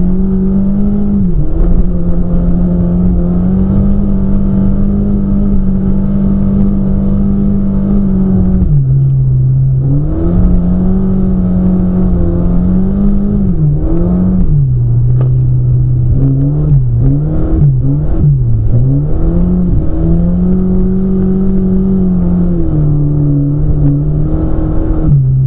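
Car engine heard from inside the cabin while driven hard, running at high revs for long stretches, with its pitch dropping and climbing back several times as it lifts and shifts. A quick series of lifts and blips comes about two-thirds of the way through.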